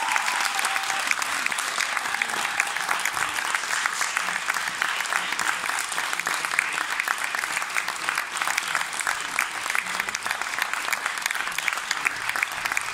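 Audience applauding: dense, steady clapping of many hands. A last held note of the music fades out in the first second.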